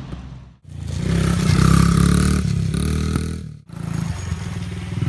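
Small Honda mini dirt bike engine running and revving, heard in two cut-together stretches: loudest in the first, then a steadier puttering in the second.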